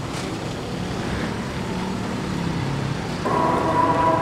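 Street traffic noise mixed with the sizzle of pakora batter deep-frying in large woks of hot oil. About three seconds in, a loud steady horn with several pitches starts suddenly and holds.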